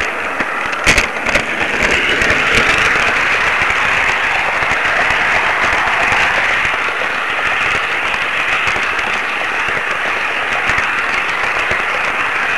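Steady rushing hiss full of fine crackling clicks, picked up by the on-board camera of a running model train, with two sharper knocks about a second in.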